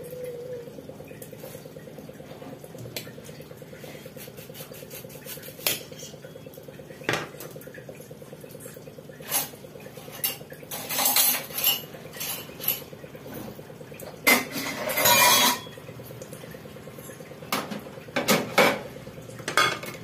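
Steel dishes and cutlery handled and set down, with scattered clinks and clatters that are busiest about eleven seconds in, around fourteen to fifteen seconds, and near eighteen seconds, over a steady low hum.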